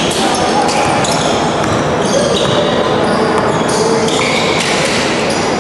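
Basketball game sounds in a gymnasium: sneakers squeaking on the court floor in short high squeals, a ball bouncing, and an echoing din of indistinct voices.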